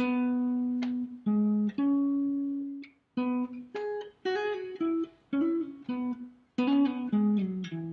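Electric guitar playing a slow single-note riff with a clean tone: picked notes that each ring briefly, a few slides between notes, and a falling run of notes near the end.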